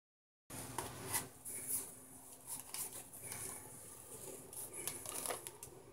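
A cardboard box and chunks of microwave-baked cornstarch being handled over a plastic bowl: scattered light clicks, taps and rustles, starting about half a second in.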